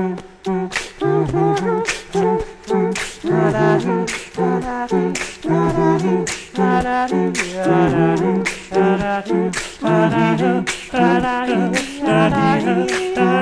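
A cappella vocal music: layered humming and sung harmonies over beatboxed percussion, with sharp mouth-made hits about twice a second.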